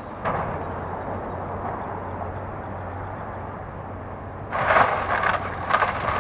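A hydraulic excavator runs steadily at a distance while its bucket tears down a house roof. There is a crash just after the start, then a burst of several loud crunching, crashing impacts from about four and a half seconds in as roofing and timber break and fall.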